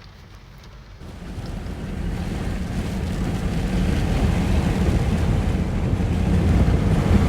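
Rainstorm wind buffeting the microphone with the rush of heavy rain, starting abruptly about a second in and growing louder.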